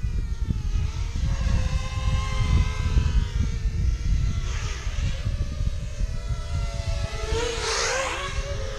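FPV racing quadcopter's brushless motors and propellers whining, the pitch sliding up and down as the throttle changes, loudest as it passes close to the microphone about three-quarters of the way in. Wind buffets the microphone throughout.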